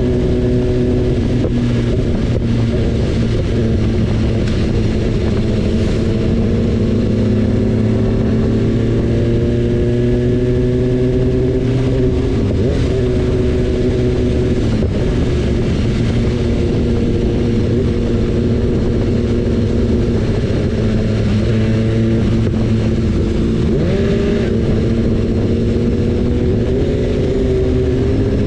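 BMW S1000RR's inline-four engine running on the move, its pitch sagging and climbing gently with throttle and speed, over a steady low rush of noise.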